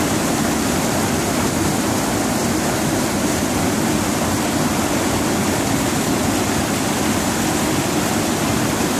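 Water pouring over a dam gate and crashing into the churning pool below: a steady, loud rush.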